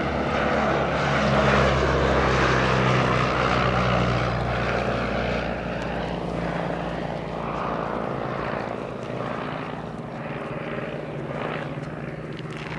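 De Havilland DH60X Moth biplane's Cirrus Hermes II four-cylinder engine and propeller running steadily in a fly-past. It is loudest in the first few seconds as the plane passes close, then fades as it flies away.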